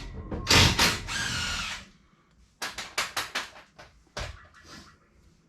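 Metal parts of a rear axle and drum brake assembly being handled: a series of sharp clanks and knocks with a scraping noise about a second in.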